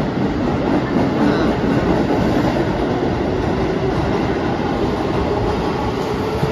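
Keihan electric train running along an underground station platform: a steady loud rumble of wheels on rails as the cars go by, easing off a little in the second half.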